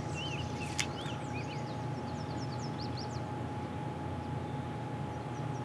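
Small birds chirping: many quick, high, downward-sliding chirps and a few warbled notes, over a steady low rumble.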